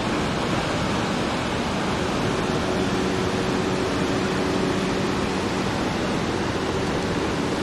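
Rushing water of the Iguaçu River's rapids and falls: an even, unbroken rush at a steady level, with a faint low steady hum joining about two seconds in.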